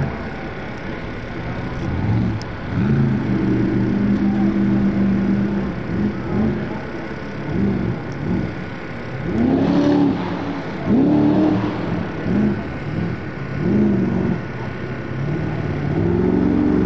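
Monster truck engine revving up and down again and again, at times held steady at high revs for a couple of seconds.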